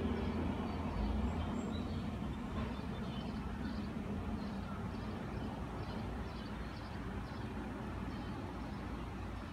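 Steady low background rumble, with faint short high chirps recurring about twice a second.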